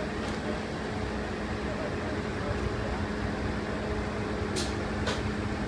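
Steady engine drone with a constant low hum, from the diesel power pack of a self-propelled modular transporter. Two sharp clicks about half a second apart near the end.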